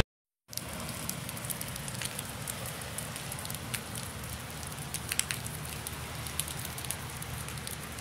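Rain falling on wet paving: a steady patter with scattered sharp drop ticks, starting about half a second in.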